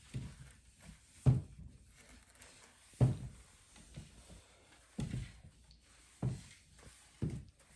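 Irregular thuds and knocks, about five over several seconds, as small children sweep the floor with a broom.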